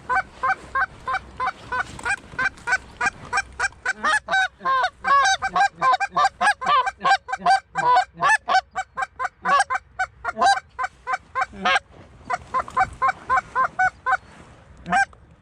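Loud, rapid goose honks and clucks, several a second in a long run, with a brief pause about two-thirds of the way through before they pick up again.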